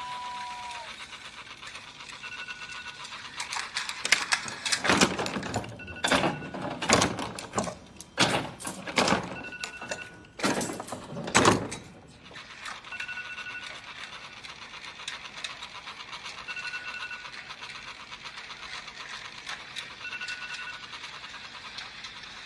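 iPhone alarm going off, a short two-note chime repeating about every three and a half seconds over a fast pulsing pattern. A run of loud knocks and thumps falls between about four and twelve seconds in.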